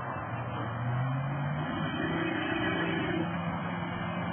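Ford F-150's 5.4-litre V8 running as the truck drives over dirt, the revs climbing over the first two seconds and then easing back, under a steady hiss.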